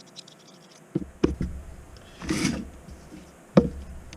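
Handling of a PL-259 coax connector and its collar: a few sharp clicks and a brief rub of metal parts and cable, with low handling rumble.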